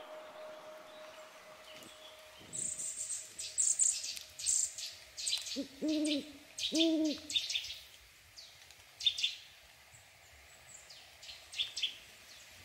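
Forest ambience: an owl hoots twice, two short low notes about a second apart near the middle, while small birds chirp high and briefly throughout.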